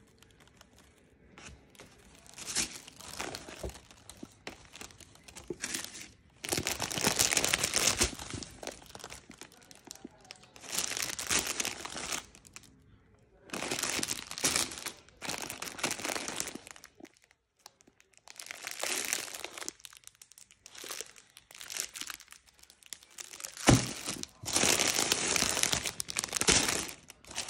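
Tissue paper crinkling and rustling as it is pulled open and crumpled by hand, in repeated spells of a second or two with short pauses between. A single sharp knock about three-quarters through.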